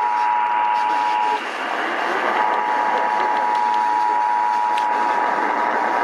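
The Emergency Alert System attention signal, two steady tones sounding together just under 1 kHz, played through a portable AM radio's speaker over static hiss. The tones break off about a second and a half in and resume a second later.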